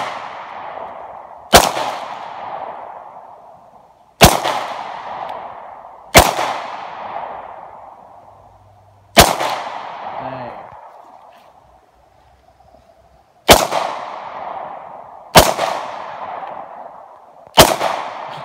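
Glock 23 pistol in .40 S&W firing seven single shots at an uneven pace, about two to four seconds apart. Each sharp report is followed by a long fading echo.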